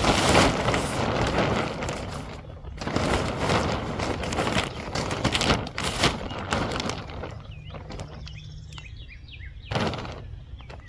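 Rough rustling and scuffing noise in uneven bursts, then a quieter stretch about seven seconds in where a bird chirps several times.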